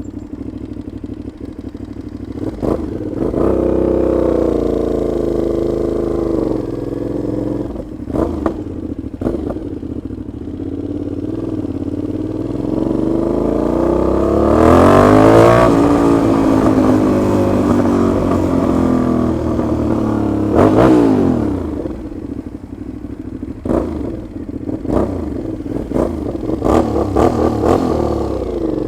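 Aprilia Shiver 750's V-twin engine running loud through a leaking exhaust on the move, the revs rising and falling several times, highest about halfway through and again about three-quarters of the way, with scattered sharp cracks. The rider blames the noise on play between the silencer and the catalytic converter that re-tightening the clamp did not cure.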